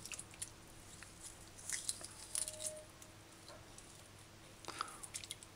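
Hands working partly frozen chicken gizzards in a stainless steel pot of water: faint, scattered splashes and squelches in small clusters, over a low steady hum.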